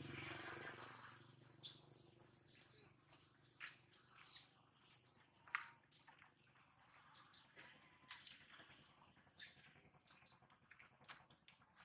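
A rapid, irregular series of short, high-pitched chirps and squeaky calls, several sweeping quickly downward in pitch, starting a little under two seconds in.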